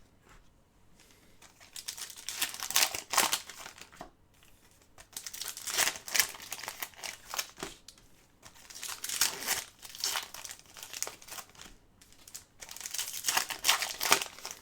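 Trading card pack wrappers being torn open and crumpled by hand, in several bouts of crinkling with short pauses between.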